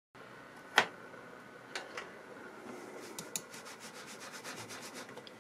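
Faint rubbing and handling noise with a sharp click about a second in and a run of light ticks around three seconds in.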